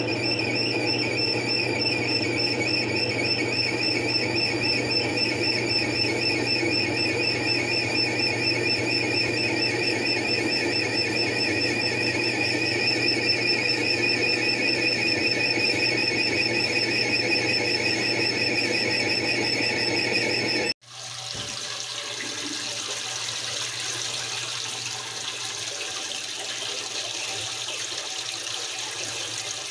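Frigidaire top-load washer running with a steady high, warbling squeal over a low hum. About two-thirds of the way in the squeal cuts off abruptly, and water is heard rushing into the tub as it fills.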